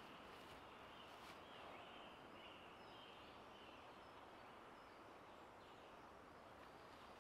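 Near silence: faint woodland ambience with a low steady hiss and a few faint, short, high chirps, mostly in the first half.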